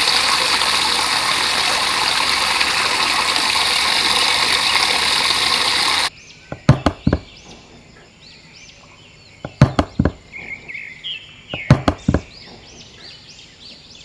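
Water gushing steadily for about six seconds, then cutting off abruptly. After that come three quick groups of about three sharp knocks, with faint repeated chirping calls behind them.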